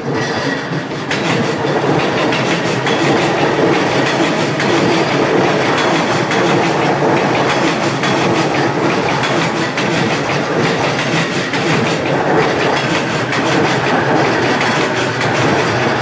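A JR E233-series electric commuter train passing over a level crossing at close range, a loud steady rumble with its wheels clattering over the rail joints. The sound builds up over the first second as the train reaches the crossing.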